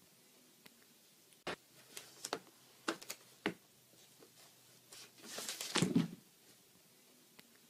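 A cat with a cardboard tissue box stuck over its head bumping around a desk covered in papers. First comes a scatter of light knocks and taps, then a longer rustling scrape of paper and cardboard about five seconds in.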